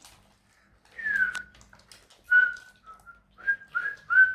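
A person whistling a string of short notes: one falling note about a second in, then a run of brief, even-pitched notes.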